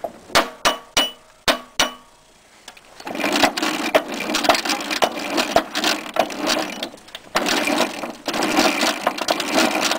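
Small hammer striking a steel roll pin about six times in two seconds, driving it through a snowblower drive gear and its shaft. From about three seconds in, a dense, rough clattering noise follows and carries on.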